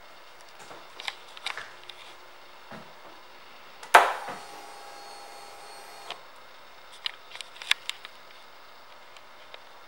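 A sharp click about four seconds in as the Harley-Davidson Softail Deuce's ignition switch on the tank console is turned, followed by an electric hum that lasts about two seconds and stops suddenly. Light handling clicks come before and after.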